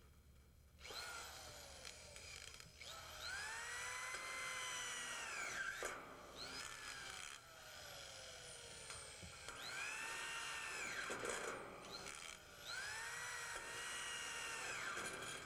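Corded electric drill driving frame screws through a flat bracket into steel frame tubing. Its motor whine rises each time the trigger is pulled and drops away as the screw seats, several times over.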